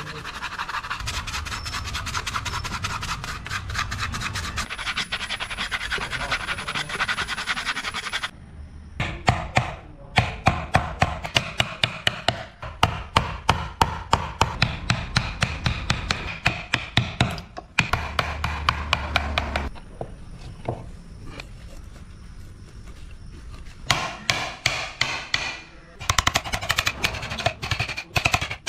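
Carved wood being scraped and rubbed by hand, a dense rasping sound, followed by a wooden mallet striking a carving chisel into wood in quick sharp taps, about two to three a second, with a short pause in the middle.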